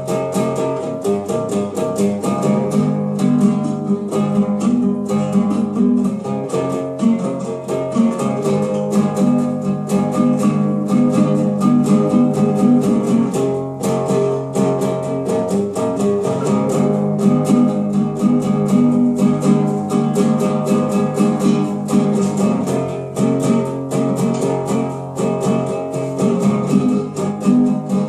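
Small acoustic guitar being played steadily: a continuous run of quick strummed and picked chords.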